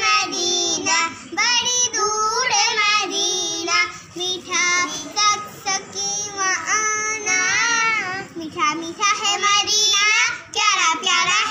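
Two young girls singing a song together in high child voices, phrase after phrase.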